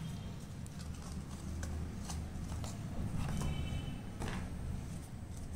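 Hands handling paper and small parts on a table: a few faint knocks and rustles over a steady low hum.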